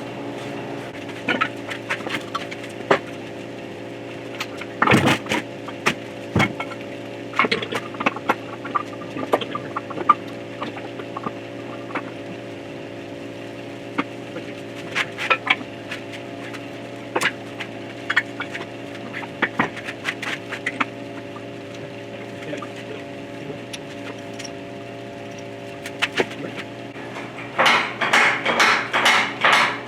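Steady machine hum with scattered metallic clinks and knocks from tools being handled on steel parts. Near the end comes a fast, even run of metal impacts, about four a second.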